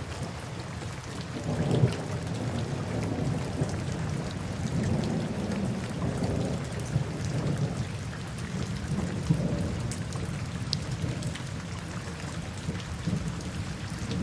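Steady rain with low rolling thunder that swells and fades, and scattered drops ticking.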